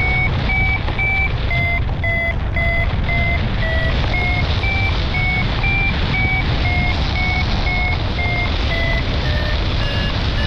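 Paragliding variometer beeping about twice a second, its pitch wavering slightly and sinking a little near the end, over steady wind rushing on the microphone. The beeping is the vario's signal that the glider is climbing in lift.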